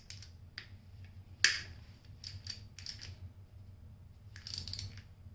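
Hand socket ratchet being worked on a nut, metal clicking on metal: a single sharp click about one and a half seconds in, short clusters of clicks after it, and a quick run of ratchet clicks near the end. The ratchet is faulty and skips under load.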